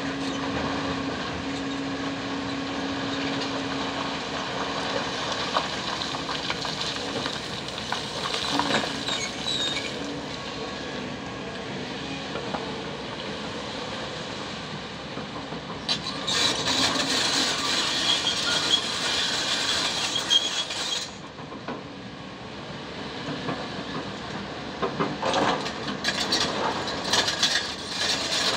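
Kobelco 220 hydraulic crawler excavator working in broken rock: its engine runs steadily under load while the bucket scrapes and digs through stones, with rocks clattering and tumbling. Past the middle comes a louder stretch of hiss and rattle lasting several seconds, and near the end a rapid run of rock clatter.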